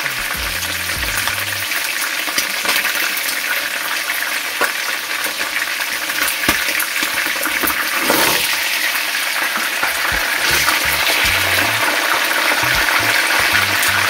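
Whole fish frying in hot oil in a frying pan: a steady sizzle with many small pops and crackles. The sizzle surges about eight seconds in, as a fish is turned over with a metal spatula.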